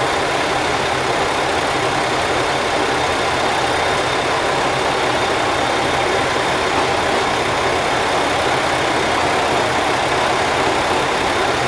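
Diesel railcar engine idling steadily at the platform, an even rumble with no rise or fall.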